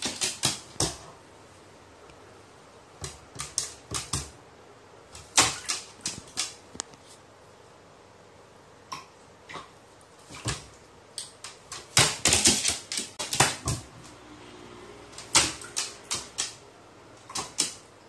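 A pet crow stepping about in a plastic basin of shallow water and dipping its bill: scattered sharp taps and clicks in irregular clusters, densest about two-thirds of the way through.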